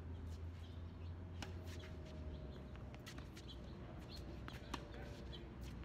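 Faint birds chirping over a steady low rumble, with scattered light taps and clicks.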